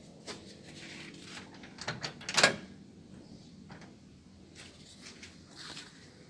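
Footsteps on a paving-block driveway, with a few light clicks and one sharp, loud clack about two and a half seconds in.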